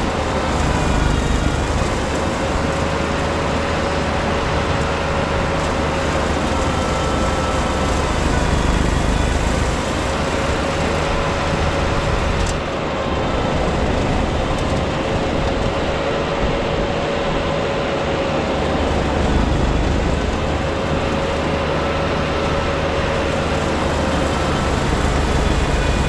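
Tractor engine running under load, driving a PTO-powered Farm King snowblower that is cutting into deep snow and throwing it. A steady rumble with a whine that wavers slightly in pitch.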